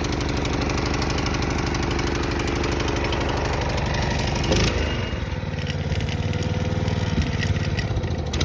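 Honda lawnmower's four-stroke single-cylinder engine running steadily just after a cold start on choke. About four and a half seconds in there is a knock, and the engine's note changes after it but keeps running.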